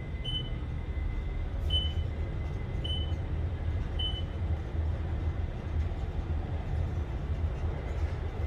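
Otis traction elevator car travelling down, with a steady low rumble from the ride. Four short high beeps sound about a second apart in the first four seconds, one for each floor passed.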